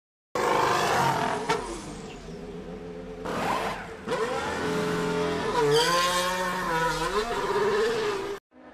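Race car engines revving, the pitch rising and falling in a few separate clips, the last of them cutting off abruptly near the end.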